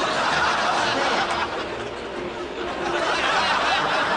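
A crowd laughing and chattering, a steady dense wash of many voices that eases slightly in the middle.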